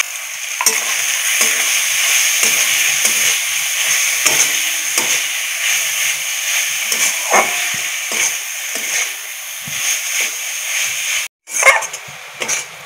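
Grated coconut being lightly fried in hot ghee in an aluminium kadai: a steady high sizzle, with a metal spatula scraping and tapping against the pan as it is stirred. The sound cuts out briefly near the end.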